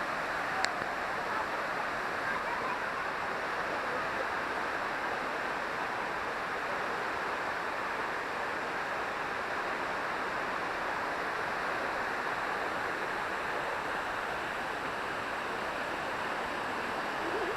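Waterfall rushing steadily, with one short click near the start.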